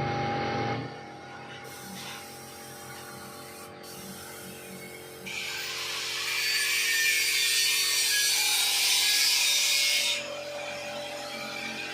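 Compressed-air paint spray gun hissing steadily for about five seconds, cutting in sharply about five seconds in and stopping sharply, over steady tones.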